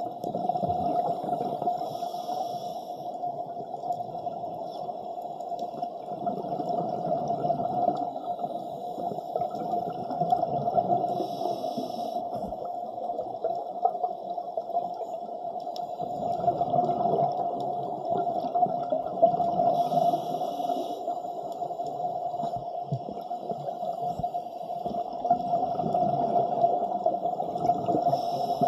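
Underwater sound of a steady low hum and water noise, with the bubbling hiss of a scuba diver's regulator exhaust breaking in about every nine seconds, once per exhaled breath.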